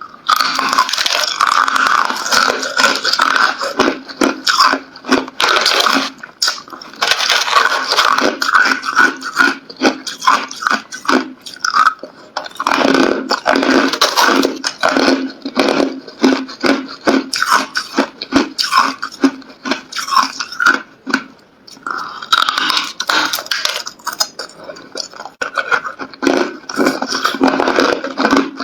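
Hard clear ice being bitten and chewed close to the microphone: dense, irregular crunching and cracking, with a few short breaks between bites.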